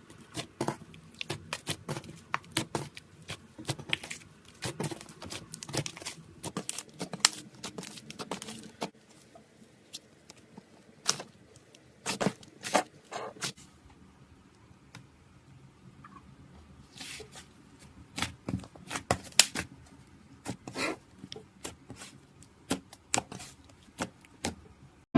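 Slime stress ball being cut open: irregular sticky crackles, snaps and tearing sounds in clusters, with a couple of quieter spells between them.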